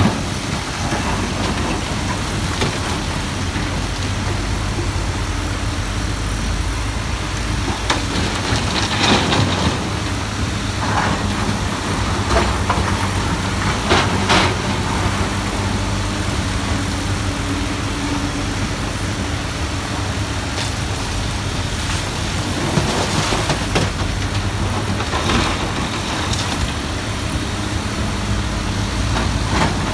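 Komatsu hydraulic crawler excavators working in rock: a steady diesel engine drone, broken a handful of times by short clanks and clatters as the steel bucket digs into and drops broken stone.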